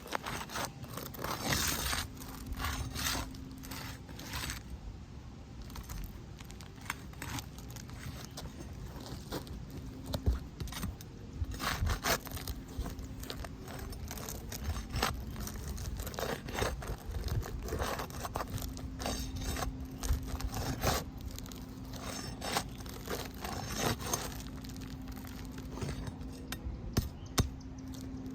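Asphalt roof shingle being worked loose by hand and tool from its seal: irregular scraping, crackling and sharp clicks. A faint steady low hum runs under it at times.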